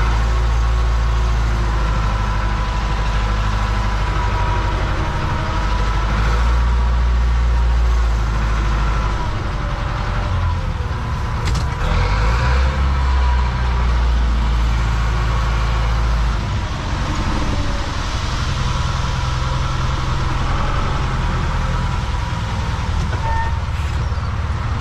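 Zetor 7245 tractor's four-cylinder diesel engine running, heard from the cab, with its low note easing off and picking up again a couple of times.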